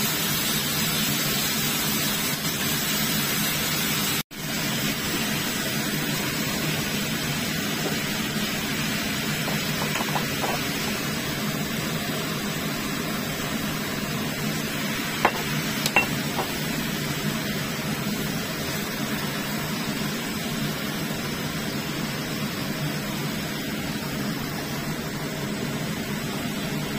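Ground pork, chayote and carrot strips sizzling and being stirred in a stainless steel pan, a steady frying hiss. It cuts out for a moment about four seconds in, and there are two sharp clicks a little past halfway.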